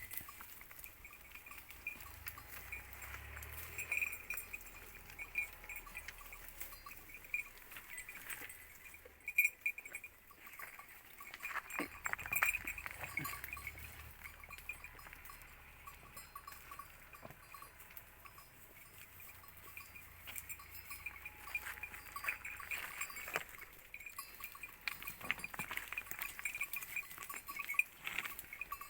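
Totapuri goats in their pen: scattered clicks, knocks and clinks over a steady high-pitched hum, with no clear bleating.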